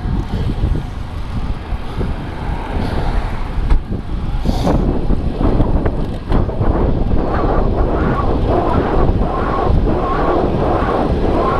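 Wind buffeting the microphone of a camera on a moving rider, with rushing road noise that grows louder and denser about four and a half seconds in.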